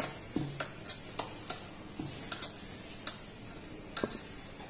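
Irregular light clicks and taps of a hand working crumbly wheat flour, semolina and oil in a stainless steel bowl, knocking against the metal about two to three times a second and thinning out near the end.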